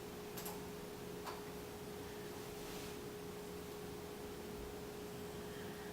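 Two light clicks, as of a laptop trackpad, about half a second and a second and a quarter in, over a faint steady electrical hum.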